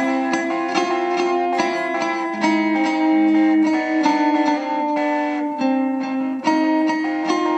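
A plucked string instrument playing a melody, notes picked one after another and left ringing over each other.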